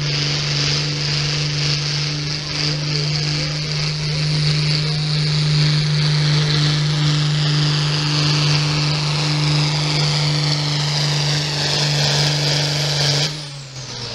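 A John Deere diesel pulling tractor runs flat out dragging a weight sled: a loud, steady engine drone held at one pitch, with a high turbo whistle that slowly falls. About a second before the end the engine suddenly drops back to a lower, quieter note as the pull ends.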